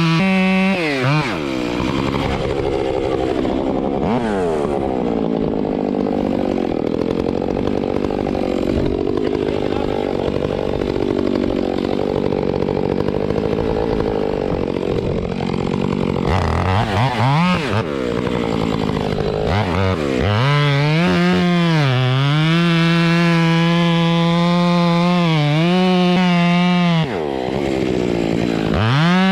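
Two-stroke chainsaw running at full throttle, then held down for about fifteen seconds at a lower, rougher pitch as it works through a cut in tulip poplar wood. After that it revs up and down in short blips, drops off briefly near the end, and revs up again.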